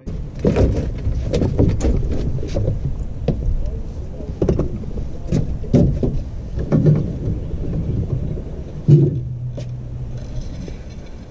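Knocks and clunks of a man moving about in a small fishing boat and taking up a fishing rod, over a steady low rumble. The loudest knock comes about nine seconds in.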